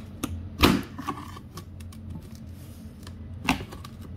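Flathead screwdriver prying at a body retaining clip on a golf cart's rear body: sharp clicks and knocks of the tip against the metal frame, the loudest about half a second in and another near the end.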